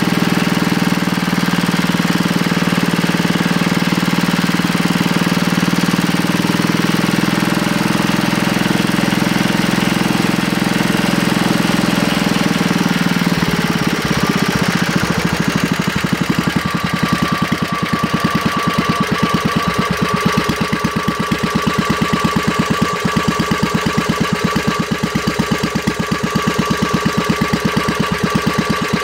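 W 239 engine running fast and even, then dropping to a slow idle about halfway through as its speed is set at the carburettor linkage. At the slow idle the separate firing strokes can be heard, and a steady high whine comes in.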